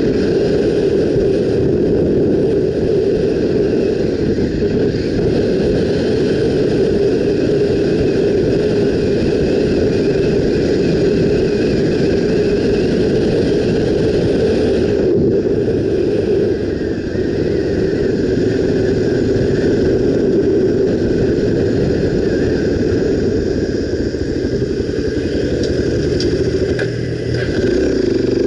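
Honda XR250 Tornado's single-cylinder engine running steadily under way, heard on board the moving motorcycle; the sound eases off briefly near the end.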